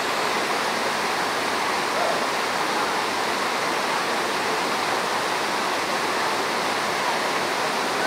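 Waterfall pouring steadily into a rock pool: an even, unbroken rush of falling water.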